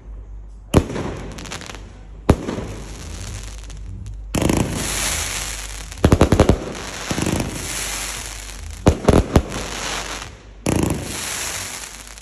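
Clobbering Time consumer firework cake firing aerial shots. Two single sharp bangs come in the first few seconds, then a loud crackling hiss sets in, broken three times by quick volleys of rapid bangs.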